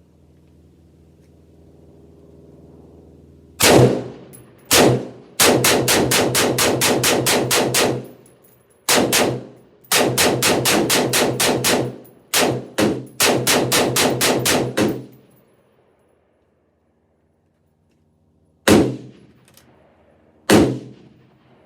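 Rock River Arms AR-15 rifle fired rapidly in semi-automatic: two single shots, then quick strings of about five shots a second with short breaks, a pause, and two last shots. A low steady hum is heard before the first shot.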